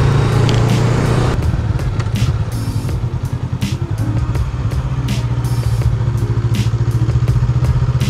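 Honda Rebel 500's parallel-twin engine running as the motorcycle rides along. The engine note eases off about a second in, as when the throttle is rolled off, and picks back up about four seconds in.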